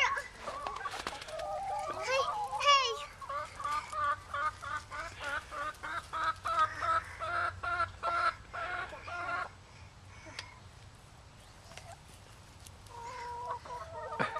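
Hens clucking in a fast, regular run of calls, about three a second, that stops about nine and a half seconds in. A few more clucks come near the end.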